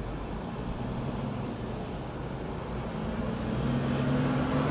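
Car running on the road, heard from inside the moving car: a steady engine hum over low road rumble, growing a little louder near the end.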